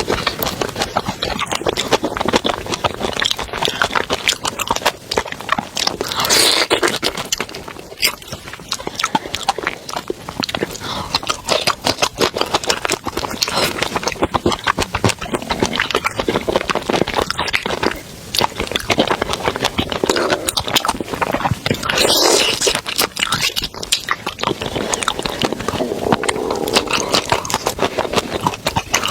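Close-miked eating: wet chewing, crunching and smacking of seafood, in a dense run of clicks and crackles with a couple of louder bursts.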